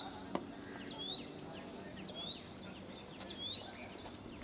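Steady high-pitched insect trill, with a short rising chirp repeating about once a second and a faint click a moment in.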